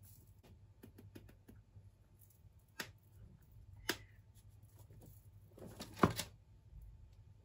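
Clicks and taps of a powdered-sugar shaker and small mesh sieve as icing sugar is dusted. Faint ticks run throughout, with a few sharper clicks, the loudest cluster about six seconds in.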